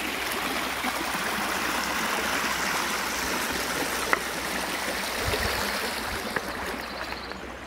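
Shallow creek water running over stones in a small riffle: a steady rushing that fades near the end. A few light clicks are heard over it, footsteps on the loose rocks of the bank.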